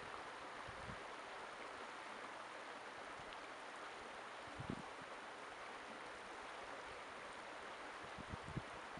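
Shallow creek running over rocks: a faint, steady rush of flowing water. A few brief low puffs of wind hit the microphone, the clearest near the middle and a cluster near the end.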